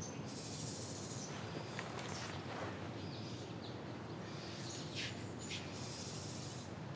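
Birds chirping in short high calls, with a couple of longer high trills, over a steady background hiss.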